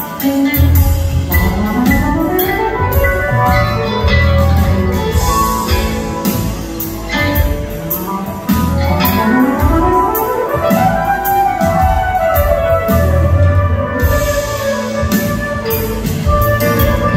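Live band playing an instrumental passage, heard from the audience: drums, bass and keyboards, with long sliding notes rising in pitch twice.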